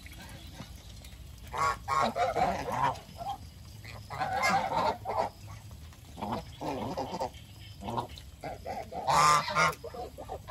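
Domestic geese honking in several short bouts of calls, the loudest bout near the end.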